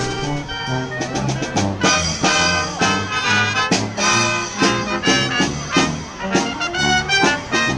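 Brass band with sousaphone, trombones and trumpets playing an upbeat swing tune with a steady beat.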